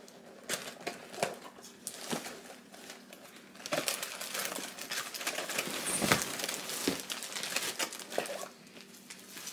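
Packaging being handled and unwrapped: crinkling and rustling with scattered light clicks and knocks, growing into a denser, continuous crinkle from about four seconds in until near the end.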